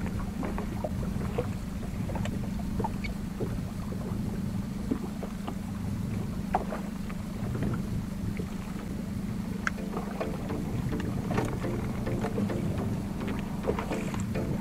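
Yamaha 70 hp outboard motor running steadily on a small inflatable boat, a constant low hum, with scattered small clicks and knocks on board.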